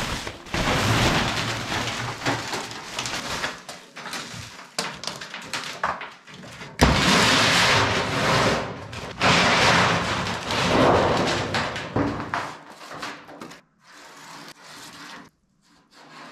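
Plastic sheeting rustling and crinkling as it is pulled off a roll of sheet steel, with the steel sheet rumbling and scraping as it is handled and unrolled on a concrete floor. The noise comes in three long loud stretches and dies down to faint handling sounds for the last few seconds.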